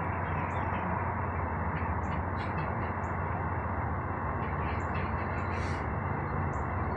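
Birds chirping in short, scattered high calls over a steady low rumble.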